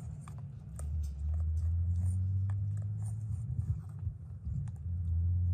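A large dog licking and chewing at a lick mat pressed against a wire crate: scattered short wet clicks and smacks, over a low rumble of wind on the microphone.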